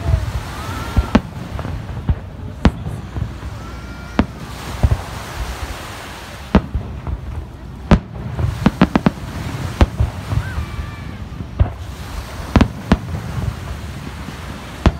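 Aerial fireworks shells bursting overhead in an irregular series of sharp bangs, one every second or two, with a quick run of five or so reports a little past the middle, over a low rumble.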